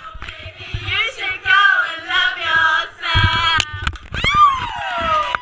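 A group of women singing loudly together, with a high whoop that falls steeply in pitch near the end.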